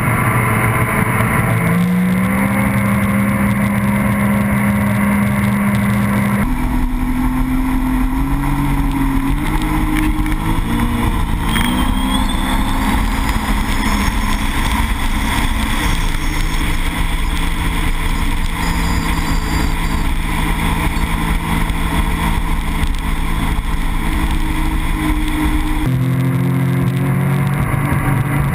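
Sea-Doo GTR 230 personal watercraft's supercharged Rotax engine running at speed over a rush of water and spray. The engine pitch climbs about two seconds in, wavers around ten to twelve seconds, settles lower and steadier from about sixteen seconds, and jumps higher again near the end.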